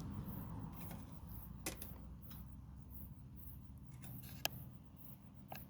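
A few faint sharp clicks, the loudest about four and a half seconds in, over a low steady rumble.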